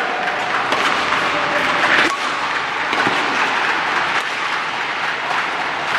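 Badminton rally in a large hall: a few sharp racket hits on the shuttlecock over a steady, noisy hall background.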